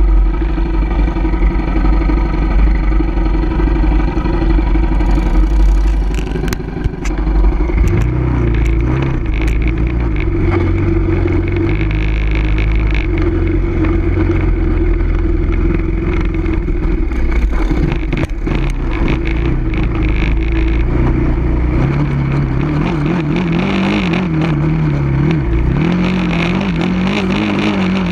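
Sport ATV engine running under changing throttle while riding over sand, its pitch rising and falling, with heavy low wind rumble. Scattered knocks and clatter come through a few seconds in as the quad goes over bumps.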